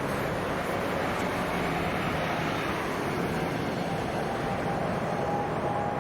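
Jet airliner engines running as a continuous rumble, with a thin steady whine coming in about halfway through.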